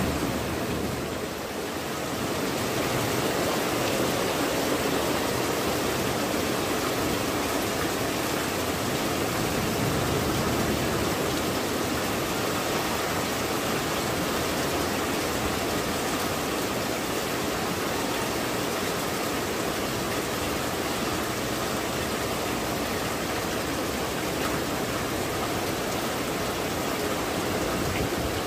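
Steady downpour of rain falling on clay tile roofs and garden foliage, an even hiss that holds at one level throughout.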